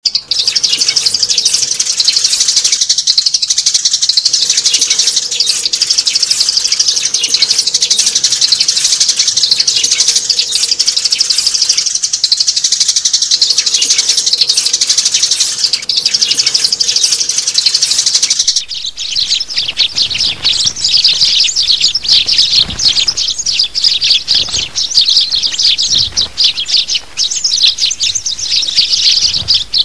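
Adult sparrows chirping densely and without pause. About two-thirds of the way through the chirping turns choppier and more broken.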